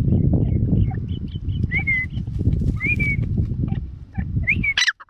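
A brown teetar (francolin) giving three short chirps about a second apart, each rising then holding level, then a sharper, louder call, over a loud low rumbling noise. The sound cuts off just before the end.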